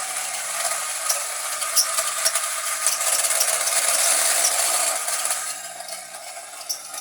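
Kenner The Claw toy truck's small electric motor and plastic gears running with a loud grinding rasp and scattered clicks, just after being switched on; it dies down about five and a half seconds in.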